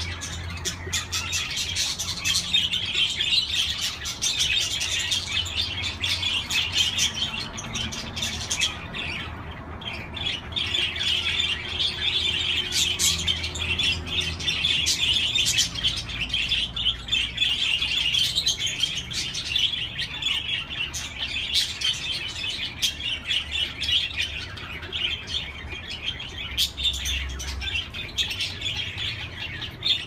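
A flock of budgerigars chattering without a break: a dense twittering peppered with many short, sharp chirps.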